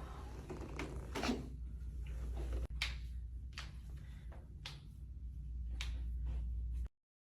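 Quiet room tone with a steady low hum and a handful of light, irregular clicks or taps, cutting out abruptly to silence near the end.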